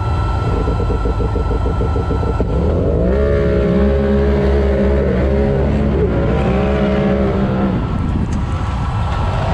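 Polaris RZR side-by-side's engine idling with a lumpy pulse, then revving up about three seconds in and held at high revs, dipping and climbing a few times as the UTV accelerates away from the start.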